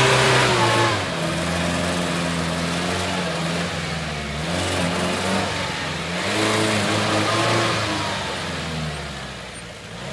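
UAZ-469's engine revving under heavy load as the four-wheel-drive pushes through deep swamp mud. The revs are high at first, drop about a second in, then rise and fall again.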